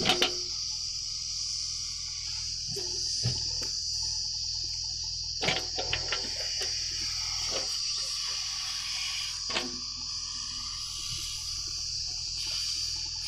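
Steady high-pitched insect chorus, like crickets, over a low steady rumble, with a few short knocks.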